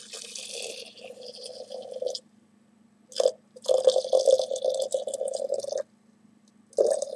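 Boiling water poured in a thin stream into a ceramic teapot over tea leaves, in three pours with short pauses between them. A brief knock comes just before the second pour.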